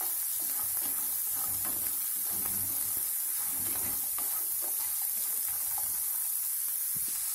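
Chopped onions, garlic and ginger sizzling steadily in hot oil in a frying pan while a spatula stirs them.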